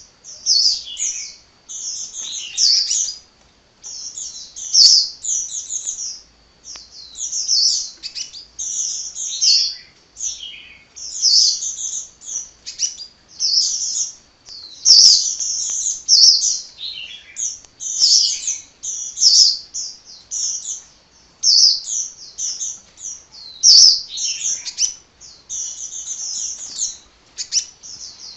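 Sunbird (a 'kolibri' to Indonesian bird keepers) singing hard without a break: a fast, high-pitched twittering song in quick, closely packed phrases.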